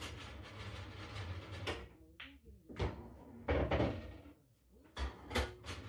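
Pool balls after a shot on an English pub-style pool table: a rolling rumble as balls run along the cloth and through the table's internal ball-return channel, broken by several sharp clacks of balls knocking together, about three seconds in and again near the end.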